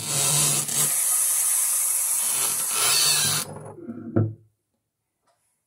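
Bathroom sink faucet running into a glass bottle as a steady rush of water, then shut off suddenly after about three and a half seconds.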